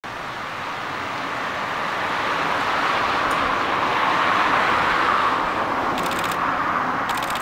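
A vehicle passing: a steady rushing noise that swells to a peak about halfway through and then eases off. Two short bursts of rapid high buzzing come near the end.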